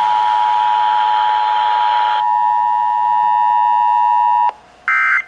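Emergency Alert System attention signal: a steady two-tone alarm that cuts off about four and a half seconds in. Near the end comes a short burst of SAME digital data tones.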